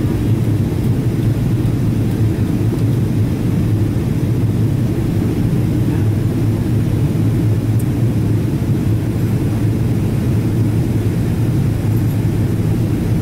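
Steady low cabin rumble inside a Boeing 777-200ER airliner in flight: engine and airflow noise heard from a window seat.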